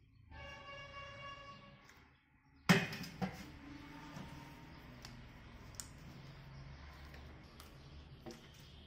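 Hands kneading wheat-flour dough in a brass plate: soft pressing and rubbing with small clicks. A sharp knock with a brief ring comes just under three seconds in, and a held pitched tone sounds for over a second before it.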